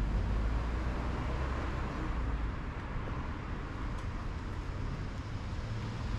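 Steady low rumble of street traffic, heaviest in the first couple of seconds and then easing a little.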